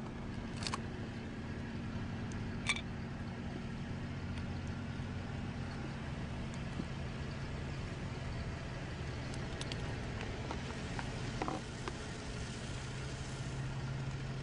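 Steady low engine hum of street traffic, with a few short sharp clicks and knocks scattered through it.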